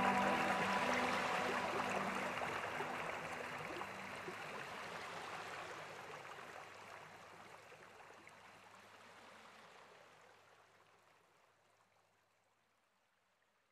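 Background track of flowing-stream water sound, with soft sustained music notes dying away in the first few seconds, fading out steadily to silence.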